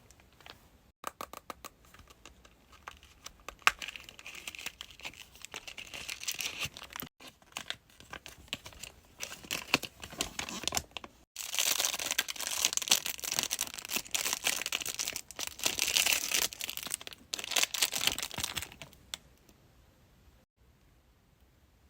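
Crinkly wrapping being torn open and crumpled by hand while badges and small character accessories are unboxed. A few light clicks come first, then the crinkling builds and is loudest for most of the second half before stopping near the end.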